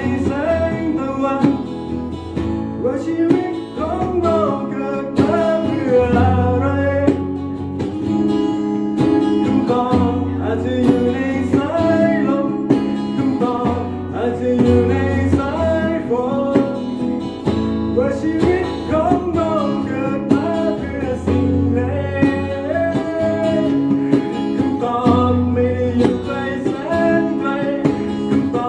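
Live acoustic music: a strummed acoustic guitar with a lap steel guitar playing sliding melody lines over it, and a man singing.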